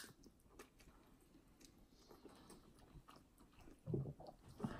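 Faint chewing of a mouthful of instant ramen noodles, with small soft mouth clicks. A brief, louder low sound comes about four seconds in.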